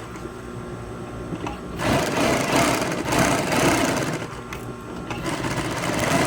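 Sewing machine stitching in two short runs, the first starting about two seconds in and the second near the end, with a brief pause between.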